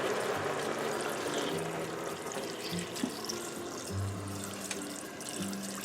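Water pouring into an Instant Pot's inner pot over dry fettuccine, a steady splashing rush that is heaviest at the start and eases off, with light background music.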